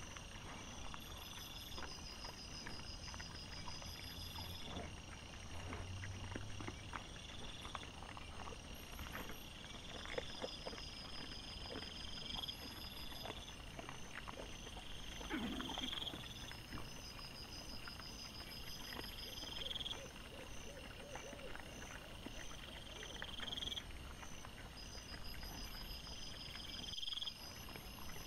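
Wild boar and piglets foraging in leaf litter: scattered rustling, crunching and snuffling, with one louder falling grunt about halfway through. Evenly repeating high-pitched chirps run underneath, about one every two seconds.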